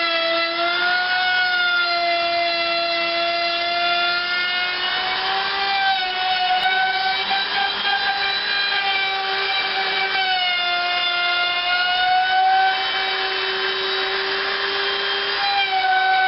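Wood router running at speed with a high, steady whine, routing the recess for a resonator guitar's cone through a jig. The pitch sags and wavers slightly, and a rougher cutting noise joins in a couple of times as the bit bites into the wood under load.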